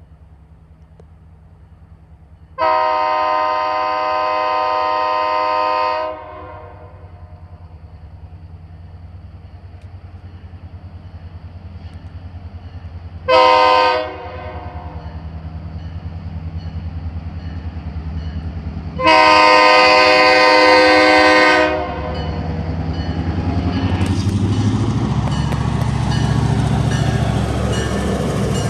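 Diesel freight locomotive sounding its horn for a road crossing as it approaches: a long blast, a short one and another long one. After the last blast the locomotive's engine rumble swells as it draws level, and the covered hopper cars start rolling past with a clattering rumble of wheels on rail.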